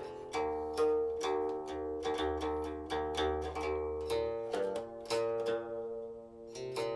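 Silk-string guqin played solo: a quick run of plucked notes, each ringing and decaying, thinning out and fading about six seconds in before a fresh pluck near the end.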